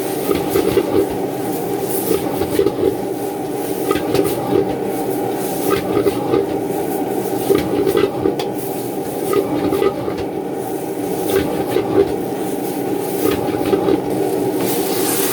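Steady roar of kitchen equipment, with scattered light clicks and clinks throughout.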